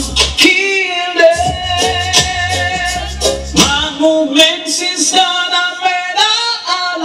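Reggae music played by a sound system: a male singing voice over a steady beat and deep bass line.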